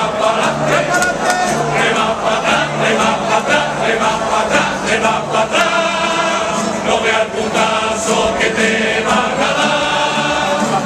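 Cádiz carnival chorus (coro) of many voices singing together in Spanish, with a low accompanying note pulsing about once a second for the first few seconds.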